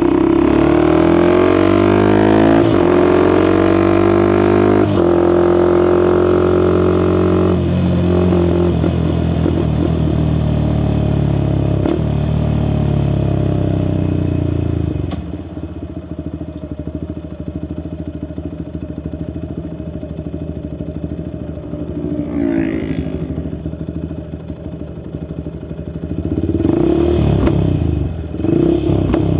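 Suzuki Gixxer SF 250's single-cylinder engine through a Yoshimura R11 exhaust, pulling hard with its pitch climbing and dropping at several gear shifts over the first half. It then eases off to a quieter, lower run, with a short rev about two-thirds in and a louder surge near the end.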